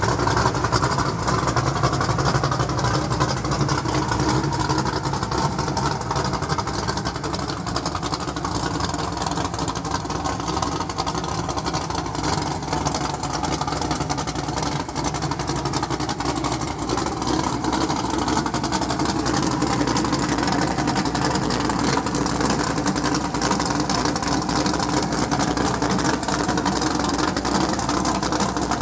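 Rock bouncer buggy's engine idling steadily.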